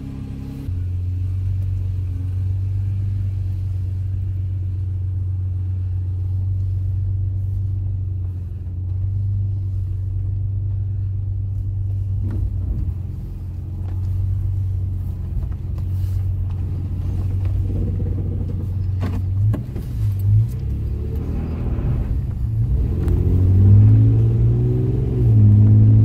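Toyota Tacoma pickup heard from inside the cab on a test drive: a steady low engine and road drone that rises in pitch and gets louder near the end as the truck speeds up, with a few brief knocks along the way.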